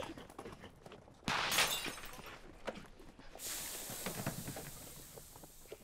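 A sudden shattering crash about a second in, then a long hiss that starts just past the middle and slowly fades, with a few low thuds under it.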